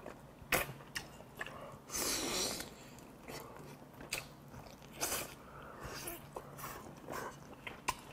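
A man biting and chewing braised kimchi with pork back ribs close to a clip-on microphone: wet mouth clicks and smacks come in short bursts, with a longer breathy rush about two seconds in.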